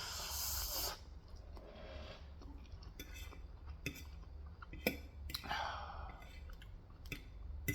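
Quiet mouth sounds of eating Korean fried chicken: chewing and lip smacks with scattered sharp clicks, and a breathy exhale at the start.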